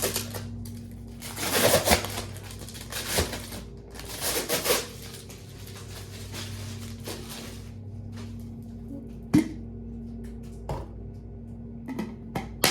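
Packaging being handled while a coffee machine is unboxed: several bursts of rustling, then a few sharp knocks and clicks as parts are set down. A low steady hum runs underneath.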